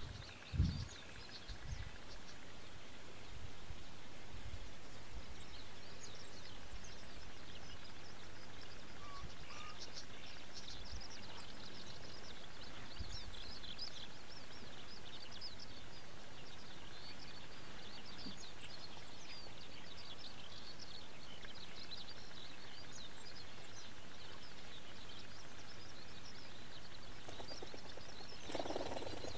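Rural outdoor ambience: a steady background hiss with a dense scatter of faint, high chirps from distant small birds. A few low thumps in the first two seconds, and a brief muffled sound near the end.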